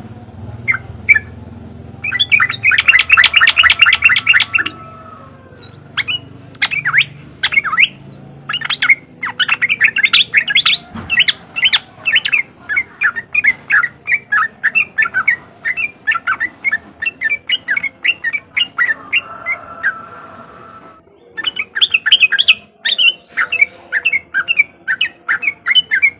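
Yellow-vented bulbul (trucukan) giving its rapid chattering 'riwik' call: long runs of sharp repeated notes, about four a second, broken by short pauses about five seconds in and again near the end.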